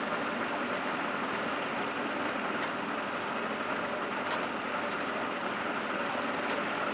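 Steady rushing noise of a small aluminium boat underway: the outboard motor running and water streaming along the hull.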